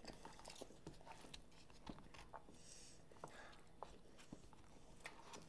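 Faint eating sounds of children with instant cup noodles: scattered small clicks of forks against the cups and chewing, with a short slurp of noodles about halfway through.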